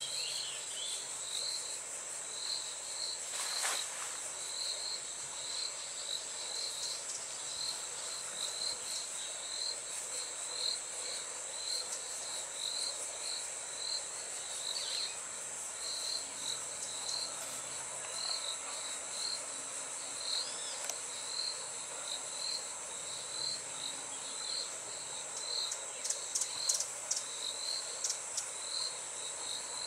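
Insects calling: a steady high-pitched drone, with a short chirp repeated evenly about every three-quarters of a second. A few sharp clicks sound near the end.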